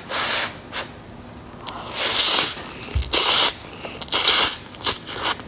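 A person slurping spicy instant noodles, sucking strands into the mouth in a series of hissing slurps: about four long ones and two short ones near the end.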